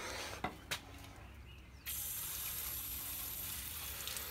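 A couple of light clicks, then about two seconds in a hose nozzle opens and sprays with a steady hiss, cooling a heated, still-warm driveshaft.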